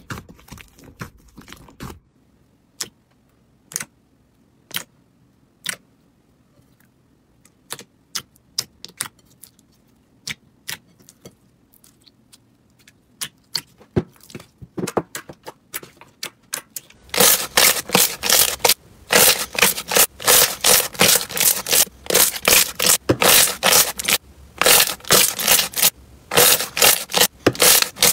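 Hands squeezing, poking and pressing slime, making sharp clicking pops as trapped air squelches out. The pops come sparsely for most of the stretch, then turn fast and loud, several a second, for the last ten seconds or so.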